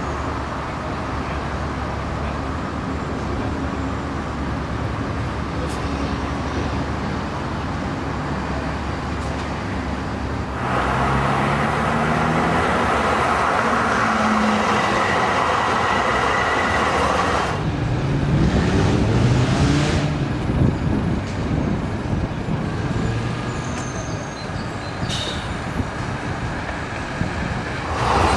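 TW6000 articulated tram approaching and passing close by. Its running noise steps up when it draws level about ten seconds in, with a low motor whine rising in pitch, then eases off as it moves away.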